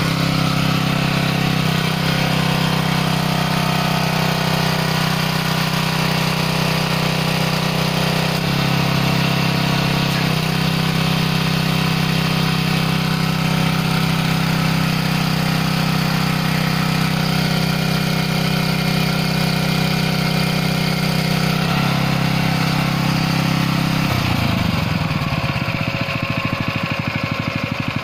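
Small gasoline engine driving a hydraulic pump, running steadily with small shifts in tone a few times. About four seconds before the end its pitch falls and it settles into a slower, pulsing beat.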